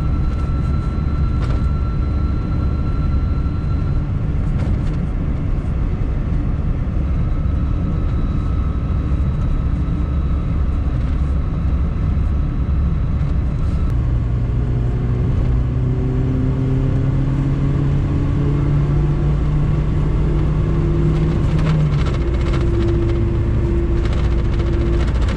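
The 1997 Lada VAZ-2108's 1.5-litre engine and road rumble heard from inside the car while driving. From about 14 s in the engine note climbs steadily under acceleration, changes pitch around 22 s in, and keeps pulling. A faint high whine sits over the rumble for the first few seconds.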